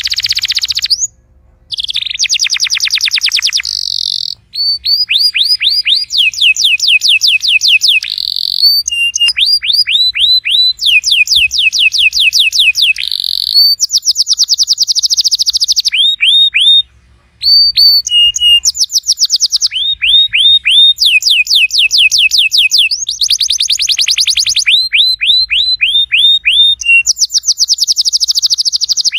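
Domestic canary singing a long song of fast trills: runs of quickly repeated high notes, switching to a new note and pitch every second or two, with brief pauses about a second in and about two-thirds of the way through.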